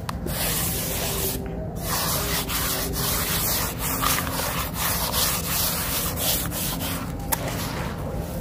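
Hands raking and crumbling dry, grainy white sand-cement mixed with crushed concrete: gritty crunching and rustling of the dusty powder and small grains, with a short pause about a second and a half in.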